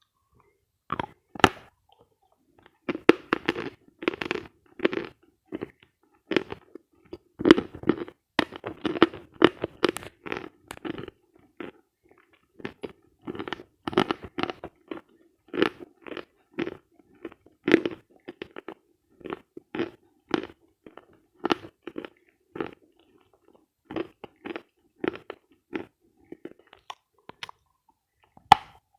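Chewing and crunching of dense, dry edible chalk: sharp, crisp crunches come in quick runs of several a second, with short pauses between bites, starting about a second in.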